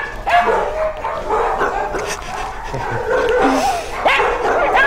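Several dogs barking and yipping at once, their calls overlapping in a continuous chorus.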